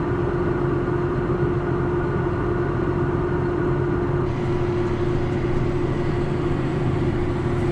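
John Deere tractor engine running steadily under way, with a steady whine on top that drops out about six seconds in.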